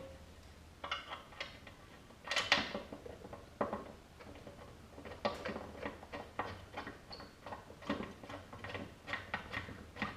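Hand tools working bolts into an outboard jack plate: irregular metallic clicks, clinks and knocks, with a louder clatter about two and a half seconds in.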